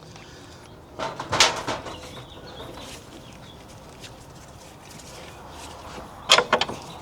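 A few sharp metal knocks and clunks, a cluster about a second in and two more near the end, as a car's front lower control arm is worked loose from its mounting.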